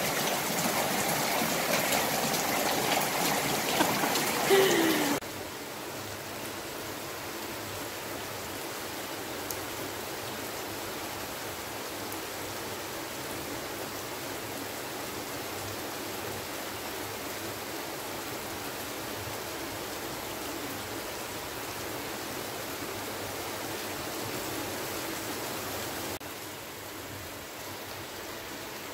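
Rain falling and splashing on wet ground, an even hiss of water. It is louder and closer for the first five seconds, then drops suddenly to a softer, steady rain.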